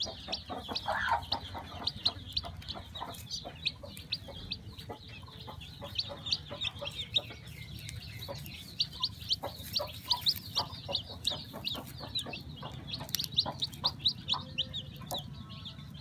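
Hatching chick peeping rapidly and continuously in short, high, falling notes, with small clicks and crackles of eggshell being peeled away by fingers.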